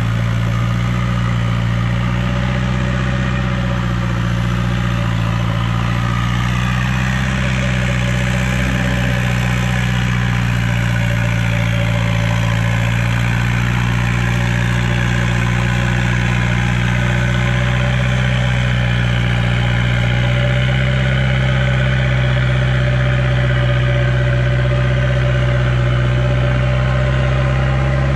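Off-road 4x4 engine idling steadily, a deep, even drone that holds without revving.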